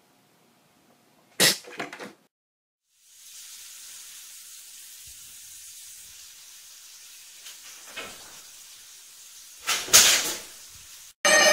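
A few knocks about a second and a half in. Then a faint steady hiss, a small knock, and near the end a loud clatter as a pink-and-white item with a white frame tips over onto a tile floor.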